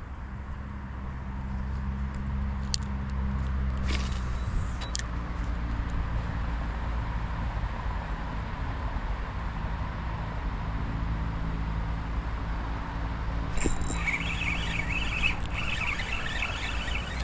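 A motor engine running steadily as a low drone, with a few light clicks and knocks over it. Near the end a higher, fluttering chatter joins in.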